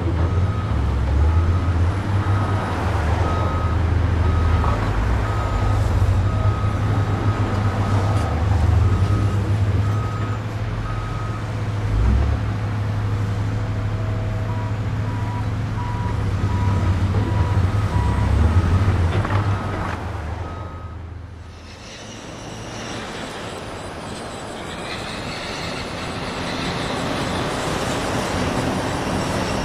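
Dubbed-in garbage truck sound: a heavy truck engine running with its reversing alarm beeping at a steady rate. About two-thirds of the way through it fades out and gives way to a different, steadier truck engine sound.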